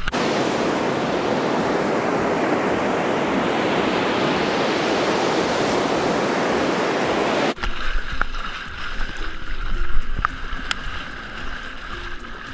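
Loud, steady rush of ocean surf and water noise that cuts off suddenly about seven and a half seconds in, giving way to quieter water sound with a few sharp clicks.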